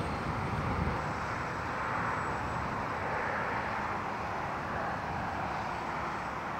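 Steady sound of highway traffic going by, an even wash of noise with no single event standing out.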